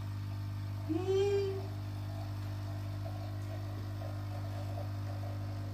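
One short vocal call about a second in, rising then falling in pitch, over a steady low hum.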